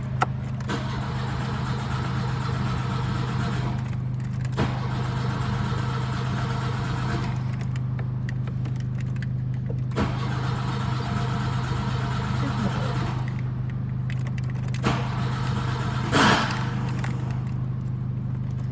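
Starter motor of a 1992 VW Voyage 1.8 cranking the engine in several bursts of a few seconds each, with short pauses between, the engine not catching: a hard start. A steady low hum runs underneath, and a brief louder sound comes near the end.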